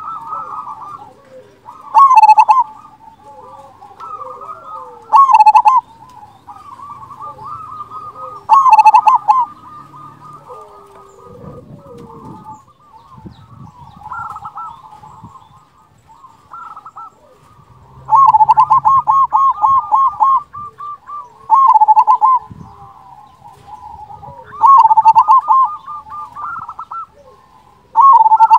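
Zebra dove (perkutut) singing its staccato cooing song: loud phrases of quick rolling coos every few seconds, the longest a run of about ten rapid notes about two-thirds of the way through, with fainter cooing in between.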